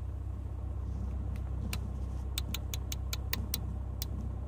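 Low steady hum in a pause between CB radio transmissions, with a quick run of about nine sharp clicks in the middle.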